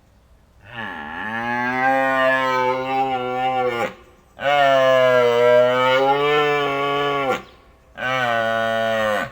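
Cow mooing: three long, loud moos with short pauses between them, the first sliding up in pitch at its start.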